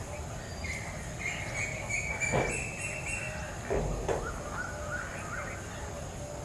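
Birds chirping and calling over steady outdoor background noise, with two short louder calls about two and a half and four seconds in.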